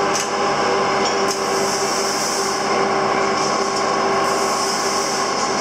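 Steady machine running in a metal workshop: an even mechanical noise with a constant hum of several held tones.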